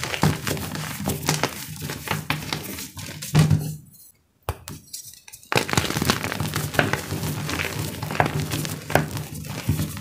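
Blocks of homemade gym chalk crushed dry by hand: dense crunching and crumbling crackles as the lumps break into powder, with a brief pause about four seconds in.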